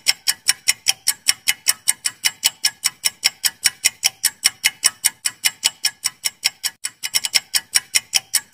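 Clock-ticking sound effect for a quiz countdown timer: sharp, evenly spaced ticks, about four a second, marking the time left to answer.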